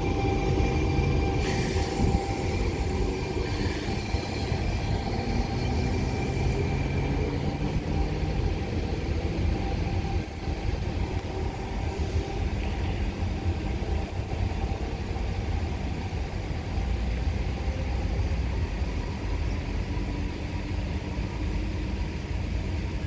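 Train running through the station: a steady rumble with several steady whining tones. A high whine fades out about seven seconds in.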